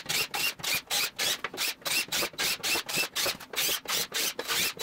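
Cordless drill working holes through an aluminum sheet: an even, rapid run of rasping pulses, about four or five a second.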